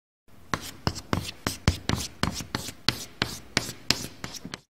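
Sketching sound effect: a run of quick, scratchy drawing strokes, about three a second, ending abruptly near the end.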